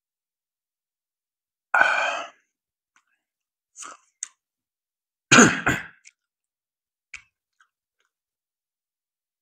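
Close-miked mouth and throat sounds of a person drinking soda from a can. There are two short, loud throaty sounds like throat clearing, about two seconds in and about five seconds in, with small swallows and clicks between and after them.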